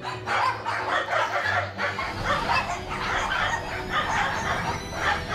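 A pack of Bichon Frise dogs barking nonstop, many short barks overlapping several times a second.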